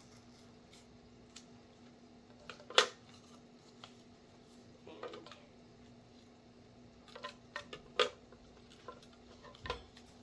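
Scattered clicks and knocks of a tape roll and paper being handled on a tabletop, the loudest about three seconds in and a quick run of them near the end, over a faint steady hum.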